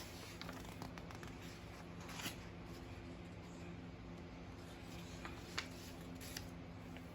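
Faint handling of a picture book's paper pages: soft rustles and a couple of small taps, over a low steady room hum.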